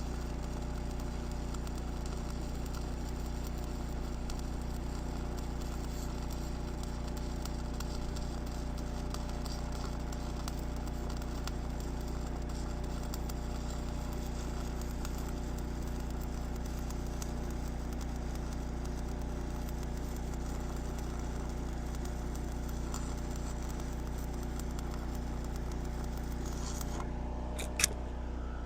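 Steady low mechanical hum, unchanging throughout, with one sharp click near the end.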